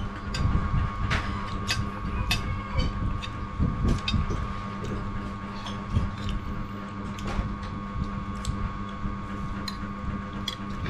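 Metal spoons and forks tapping and scraping on ceramic plates and bowls, a scatter of light clicks, over a steady hum.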